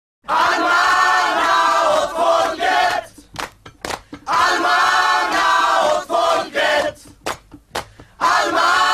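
A crowd of voices chanting together in repeated phrases about three seconds long, with short sharp knocks in the pauses between them.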